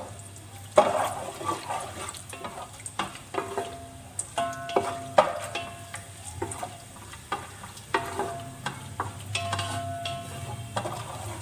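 Raisins frying in oil in a metal pot while a spoon stirs them: repeated scraping and clinking of the spoon against the pot, with brief metallic ringing and a light sizzle over a low steady hum. The sharpest knock comes about a second in.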